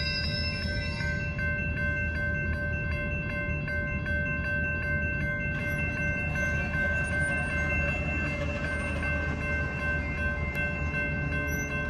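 Railroad grade-crossing warning bells dinging quickly and steadily in a regular rhythm, over a low steady rumble.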